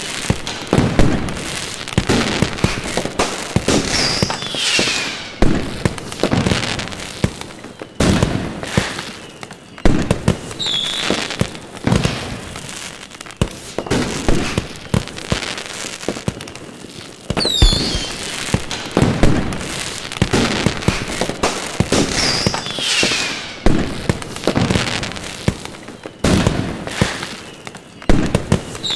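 Aerial fireworks display: a dense, continuous run of bangs and crackling bursts, with a few short whistles falling in pitch.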